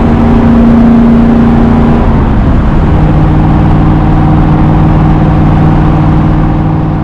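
Carbureted 1965 Ford Mustang Fastback engine and road noise at highway speed, heard from inside the cabin. The engine's steady hum drops to a lower pitch about two and a half seconds in, then holds steady, fading near the end.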